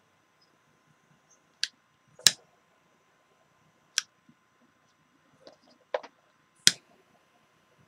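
Scattered sharp clicks and taps of small tools and parts being handled on a workbench during soldering work, about six in all, the loudest about two seconds in and again near the end.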